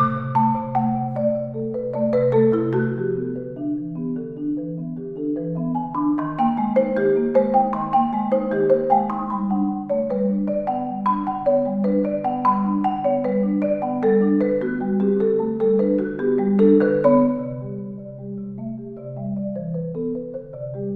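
Malletech concert marimba played solo with four mallets: a steady stream of notes, with sustained low bass notes under faster upper lines. It grows busier in the middle and drops noticeably softer near the end.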